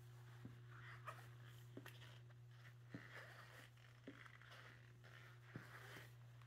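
Near silence: room tone with a low steady hum and a few faint, scattered clicks.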